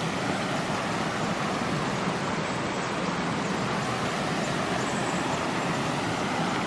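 Steady rushing of flowing stream water, an even noise with no rise or fall.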